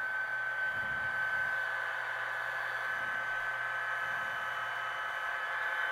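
HO scale SD40-2 model's LokSound Select decoder playing a diesel locomotive engine sound through its small onboard speaker at full default volume: a steady run of noise with a high whine held throughout.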